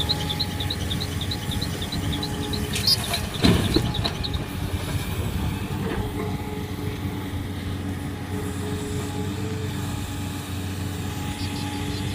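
A large diesel engine of heavy earthmoving machinery running steadily, with a couple of knocks about three and a half seconds in. Insects chirp in a regular high trill over it for the first few seconds.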